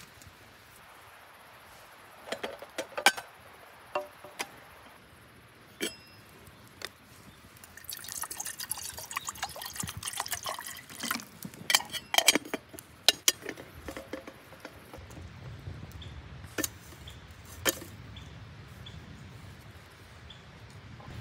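Camp cookware clicking and clinking as it is handled, then liquid poured for about three seconds, followed by more clinks. A low steady rumble sets in about two-thirds of the way through.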